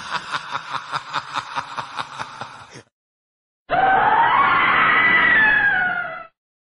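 A rapid laugh, about six pulses a second, tapering off about three seconds in. After a short silence comes a loud, long scream that rises briefly, slides down in pitch and cuts off near the end.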